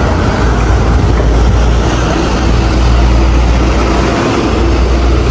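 Steady low rumble of street traffic and vehicle engines, briefly dipping about four seconds in.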